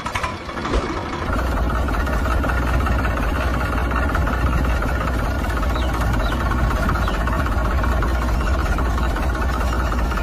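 Diesel engine idling steadily with a low, even chug; it comes in just after the start and settles within about a second.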